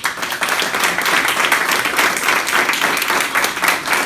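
Applause from a small audience, many hands clapping steadily.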